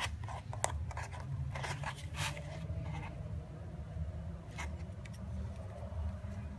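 Handling noises as a plastic OBD-II dongle is lifted out of its cardboard box tray: scattered taps and rustles in the first few seconds and one more click about four and a half seconds in, over a steady low hum.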